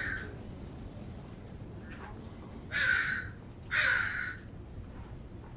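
A crow cawing: the end of one harsh caw right at the start, then two loud caws about a second apart, around three and four seconds in.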